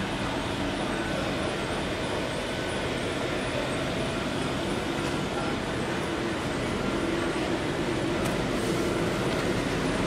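Steady mechanical din of machinery running in a veneer mill: a dense, even noise with a faint low hum and no distinct strokes or impacts.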